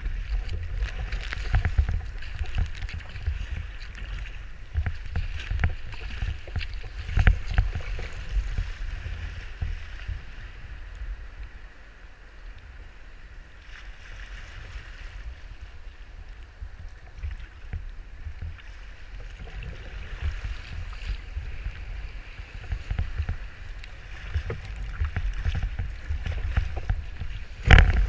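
Water rushing and slapping around a sea kayak's hull in choppy surf, with strong wind buffeting the microphone as a gusty low rumble. Right at the end a wave breaks over the bow in one loud splash.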